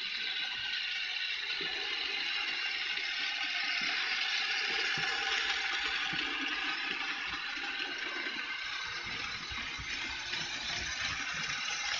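Märklin HO-scale model train running past on the track: a steady whirring rattle of the motor and wheels, with scattered clicks.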